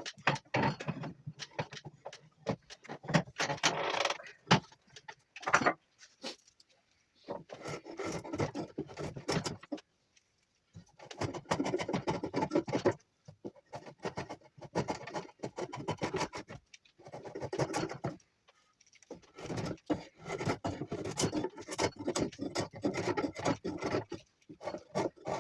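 Knife whittling juniper wood: bursts of scraping cuts lasting one to a few seconds each, with short pauses between them.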